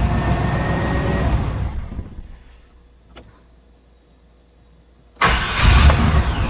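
A 1997 GM truck's 5.7-litre V8 being turned over on the starter. It winds down and stops about two seconds in; after a pause with a single click, it turns over again suddenly near the end. This is a hard-start test on a truck whose fuel pump is suspected of being damaged by a plugged fuel filter.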